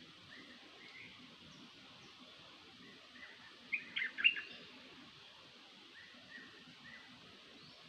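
Songbird call of the bird known in Thai as nok dok taeng, played as a lure. One short phrase of three or four sharp, quick notes comes about four seconds in, with fainter chirps around it. The phrase repeats about every six seconds.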